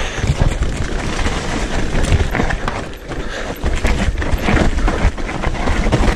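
Specialized Levo e-mountain bike rattling and knocking over a rough dirt trail at speed, with tyres rolling on earth and leaves and a steady rush of wind on the microphone.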